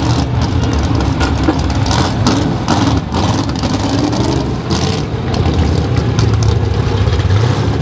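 Small-block Chevrolet V8 pulling truck running near idle at low speed after its pull, its note rising a little now and then.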